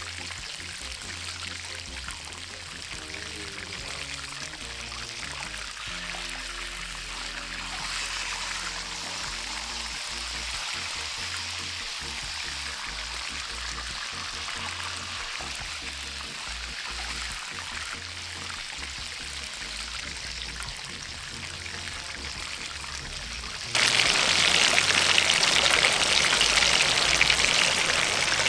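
Whole chicken sizzling in hot oil in a cast-iron skillet over a wood fire, a steady frying hiss. About 24 seconds in, a much louder rushing hiss starts suddenly.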